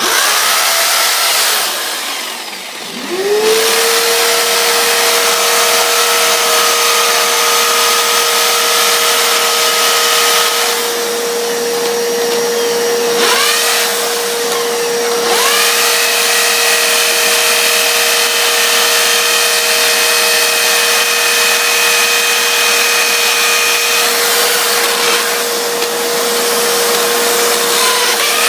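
Electric drill running under load as it bores holes into the stone and mortar around a fireplace, a steady motor whine over loud grinding noise. It slows briefly about two seconds in, then runs on with a few short easings and pick-ups.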